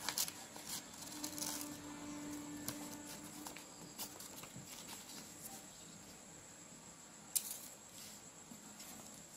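Stiff paper being folded and creased by hand on a tabletop: faint rustling with scattered sharp crackles and taps, and one louder sharp click about seven seconds in.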